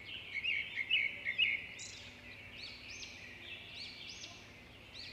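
Birds chirping over a steady high hiss. A quick run of short chirps comes in the first second and a half, followed by repeated rising-and-falling whistled notes.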